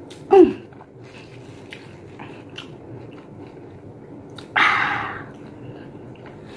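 A woman's short vocal reaction to the sour taste of a kiwi, falling in pitch, then about halfway a sharp rush of breath through the mouth, with small mouth clicks as she chews.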